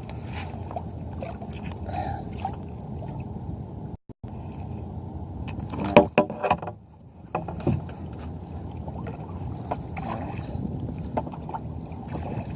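Kayak being paddled: a steady rush of water against the hull, with a cluster of sharp knocks and splashes about six seconds in and another about seven and a half seconds in.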